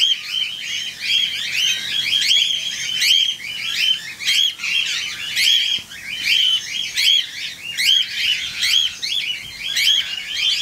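A flock of cockatiels calling without a break: many overlapping, shrill, arched chirps, several each second.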